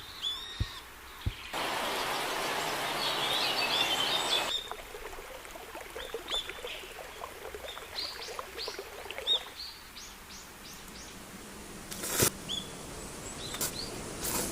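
Small birds chirping outdoors in short repeated calls, with a steady hiss that starts and stops abruptly about a second and a half in and lasts about three seconds. There are a few light clicks near the start and one sharp knock near the end.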